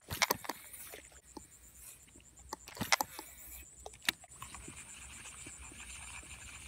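A few sharp clicks from handling a Shimano Curado baitcasting reel and rod, then a faint steady hiss in the second half.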